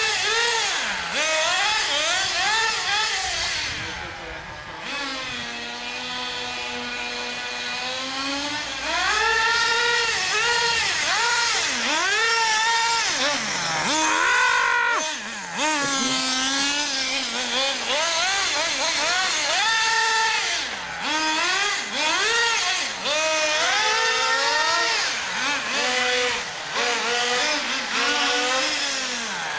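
Small nitro glow engines of HPI MT2 RC monster trucks running at high revs, the pitch rising and falling again and again as the trucks speed up and slow down. For a few seconds about five seconds in, the sound drops to a steadier, lower tone.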